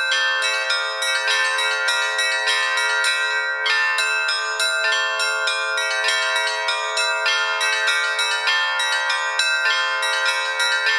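Bells struck in quick, even succession, several strikes a second, their tones ringing on and overlapping.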